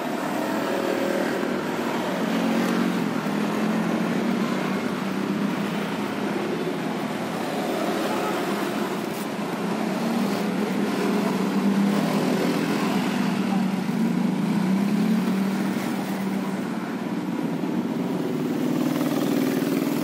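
Motor traffic on the street: engines droning steadily, their pitch rising and falling slowly as vehicles pass.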